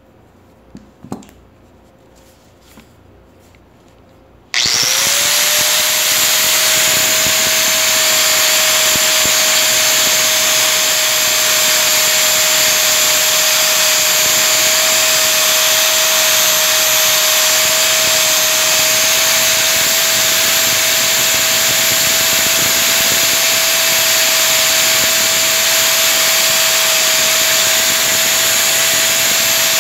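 A few faint clicks, then about four and a half seconds in an electric machine switches on abruptly. Its whine rises briefly as it spins up, then it runs at a steady speed with a loud rushing noise.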